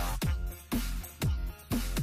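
Background electronic music with a heavy beat: deep kick drums that drop in pitch, about two a second.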